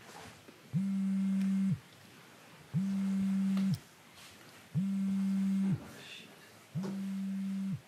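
Mobile phone on vibrate buzzing with an incoming call: four low buzzes, each about a second long, roughly two seconds apart.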